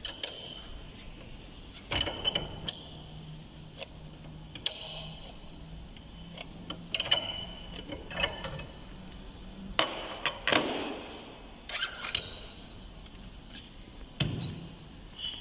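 Irregular metallic clinks and knocks, some with a short ringing: a wrench loosening the cartridge top cap of a motorcycle fork leg clamped in a bench vise, and steel tools being handled on a metal workbench.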